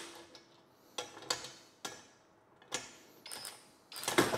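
Small metal mounting hardware and tools being handled while a bracket is bolted down: a handful of scattered clicks and knocks, with a louder clatter near the end.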